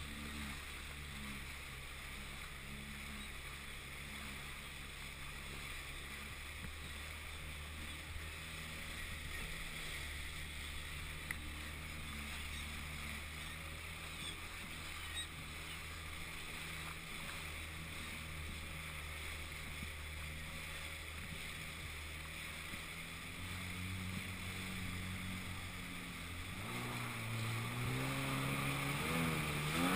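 Sea-Doo 3D DI jet ski's 951cc two-stroke engine running at low speed with a steady low hum. Near the end its pitch rises and wavers up and down as the throttle is worked.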